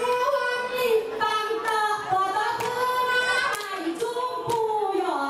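A woman singing into a microphone, holding long, wavering notes, with scattered hand claps.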